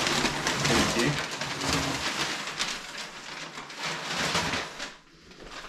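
Packing paper rustling and crinkling as it is handled and pulled out of a box, dense at first and thinning out near the end.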